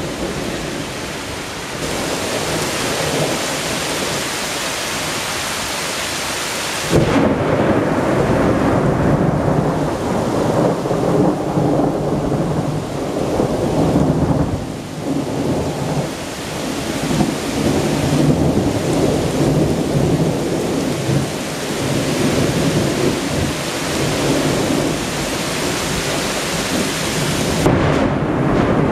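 Heavy rain during a strong thunderstorm, with thunder breaking in about a quarter of the way through and rumbling on in long rolling swells over the rain.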